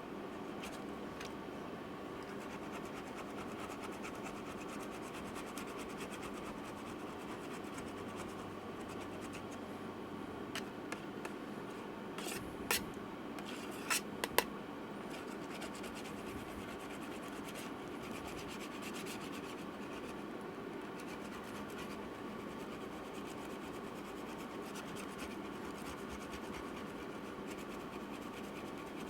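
Steady scratching and rubbing inside a laptop's case, as when old battery adhesive is scraped off, with a few sharp clicks about halfway through.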